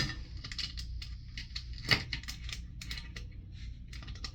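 Scattered clicks and taps of plastic toilet-tank parts being handled as a nut is worked on by hand, with a sharp knock right at the start and another about two seconds in, over a steady low hum.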